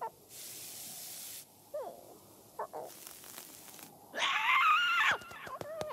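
Cartoon soundtrack: a hiss lasting about a second near the start and a few short squeaky glides, then, about four seconds in, a loud, wavering cry of about a second from the cartoon red bird.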